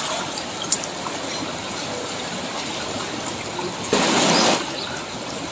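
Floodwater rushing and churning steadily over paved ground and around a drain pipe, with a brief louder burst of rushing noise about four seconds in.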